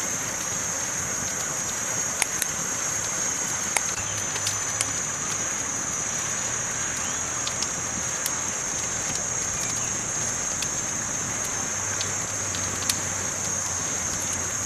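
Campfire crackling: scattered sharp pops and snaps over a steady high-pitched hiss.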